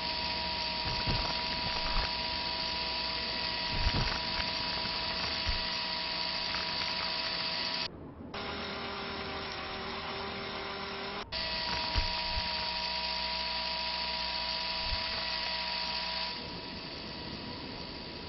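Whirring electric-motor sound effect, a steady hum with two held tones. About eight seconds in it breaks off and a lower-pitched whir takes over, then the first whir comes back about three seconds later.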